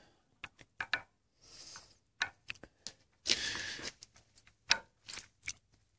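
Scattered light clicks and taps of small metal parts being handled and fitted while a Detroit Series 60 DDEC V electronic unit injector is reassembled, with a short rustling scrape a little past halfway.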